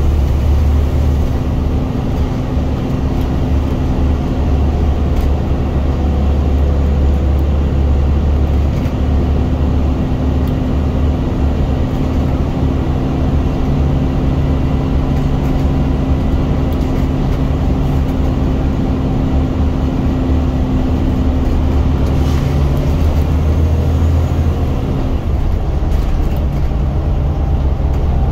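Diesel engine of a Scania single-deck bus heard from inside the passenger cabin, working hard at steady revs with a loud low drone. It eases off near the end.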